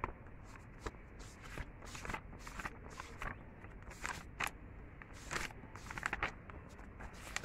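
Paper pages of a notebook being turned and handled: a run of short, crisp rustles at an uneven pace.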